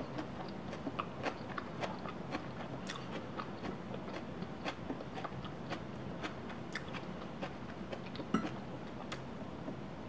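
Faint, irregular clicks and crackles of a soft flour tortilla, stuffed with scrambled egg and feta, being folded and handled in the hands, with one slightly louder crackle near the end.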